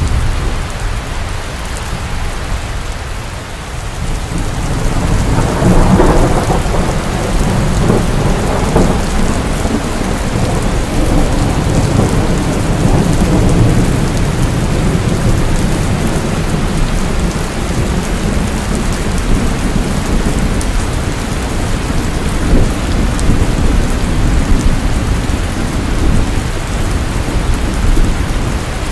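Steady heavy rainfall with rolling thunder. A low rumble of thunder swells about six seconds in and rolls on under the rain.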